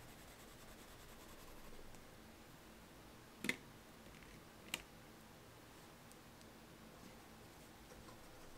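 Two light clicks about a second apart, a wax pastel being set back into its metal tin, over near silence.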